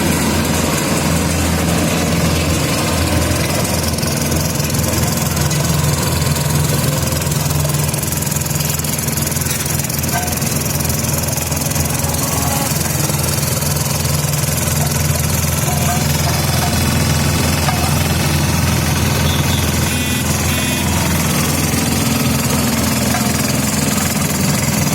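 Engine of an FVR850D vibrating road roller running steadily at a constant speed, with a low, even hum.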